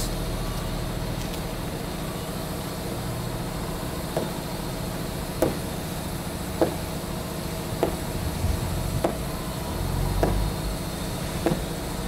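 Sneakers landing on asphalt during repeated jumping squats: seven short thuds, one about every 1.2 seconds, starting about four seconds in. A steady low rumble runs underneath.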